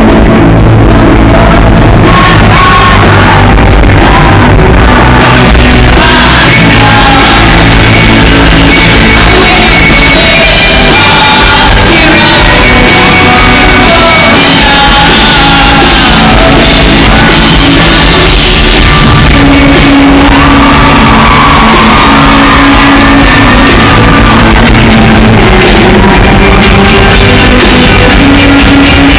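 A rock band playing live with a lead singer, very loud throughout.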